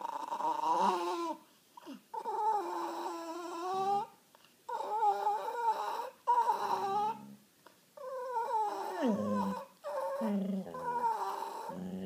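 A doodle and a toy rat terrier 'singing': wavering, sing-song howls and whines in a string of phrases, each a second or two long, with short breaks between. They are begging for pizza.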